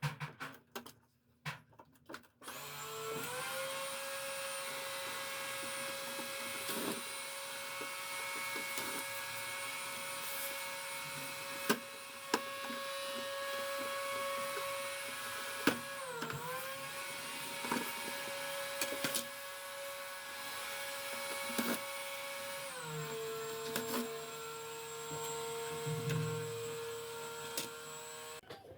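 An electric motor running steadily with a constant whine, with scattered clicks and knocks of handling on top. Its pitch dips briefly as if loaded about halfway through, then settles a little lower later on.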